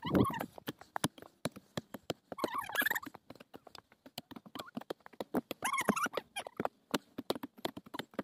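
Hand hoes chopping into dry soil and crop stubble, a quick irregular run of sharp knocks and crackles from several people digging at once. Two short high cries break in, a few seconds apart.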